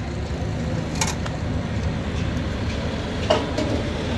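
Steady low rumble of motor vehicles, with a sharp click about a second in and another just after three seconds.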